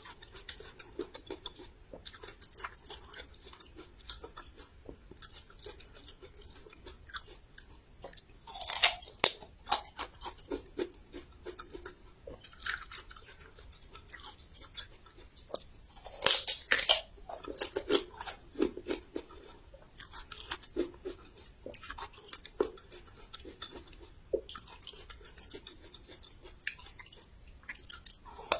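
Close-up chewing of crisp raw young ginger: a steady run of small wet crunches, with louder crunchy bites about nine seconds in and again about sixteen seconds in.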